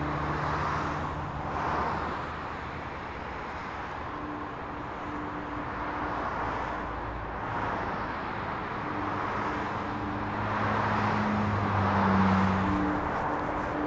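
Distant city traffic noise, a steady rush that swells and fades every couple of seconds, with a few low held tones over it.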